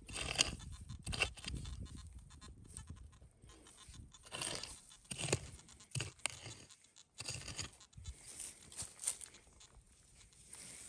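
A small hand digging pick chopping and scraping into dry, grassy soil, with the crunch of dirt and roots: several irregular strikes, digging out a metal detector target.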